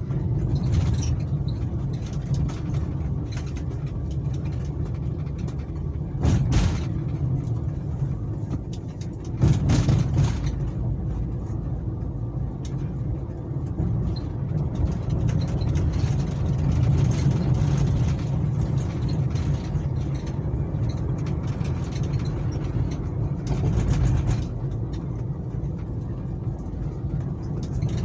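Car driving, heard from inside the cabin: a steady low rumble of engine and road noise, with brief louder noises about six and a half and ten seconds in.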